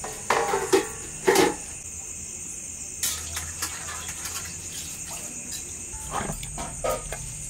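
Crickets chirping steadily in the background, with a few short knocks and clatters of steel bowls and utensils being handled on a floor. The two loudest clatters come in the first second and a half.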